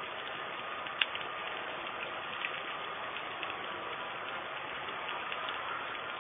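Steady hiss with a few sharp clicks, the loudest about a second in, from a pan of milk heating on a gas stove burner.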